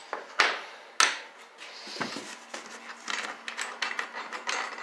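Metal mounting hardware (bolt, nut and washers on a steel Unistrut channel) being handled: two sharp clacks about half a second and a second in, then a run of light rapid clicking.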